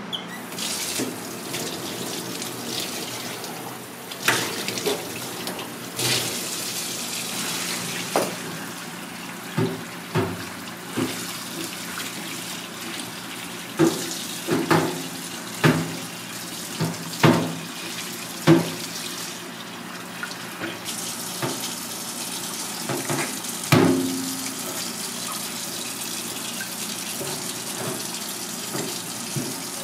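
Tap water running over a giant trumpet conch shell as it is scrubbed by hand in a stainless steel sink. Sharp knocks and clatters come now and then, most thickly in the middle, as the heavy shell is handled against the sink.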